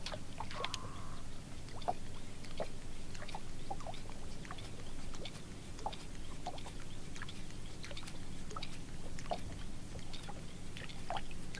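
Water lapping and ticking against the hull of a fishing boat on calm water: scattered small clicks and plops over a steady low hum, with a brief whistle-like tone near the start.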